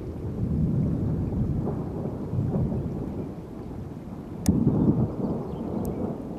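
Thunder rumbling unevenly, with a sudden sharp crack about four and a half seconds in followed by a louder burst of rumble.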